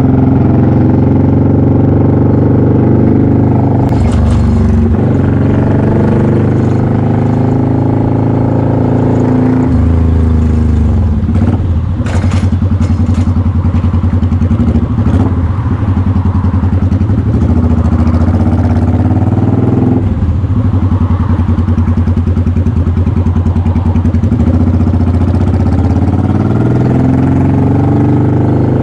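Motorcycle engine and exhaust heard from the rider's seat, running at low speed in slow traffic, its pitch dropping and rising a few times as the throttle and gears change. A few brief clicks near the middle.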